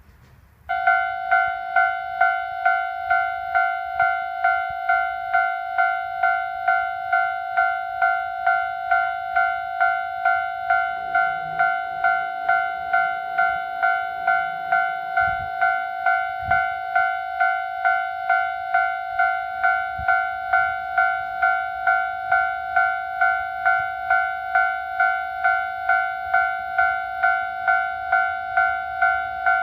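Japanese railway level crossing's electronic warning bell ringing, a repeated clang about one and a half times a second that starts a moment in and keeps going steadily.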